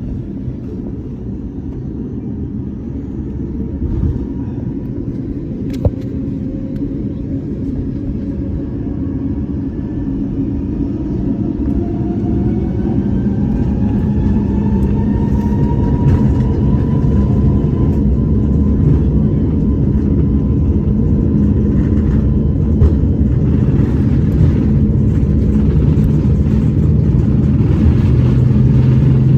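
Airbus A321neo jet engines spooling up for takeoff: a rising whine climbs over the first half and settles, under a low rumble that grows steadily louder as the airliner accelerates down the runway. A brief click about six seconds in.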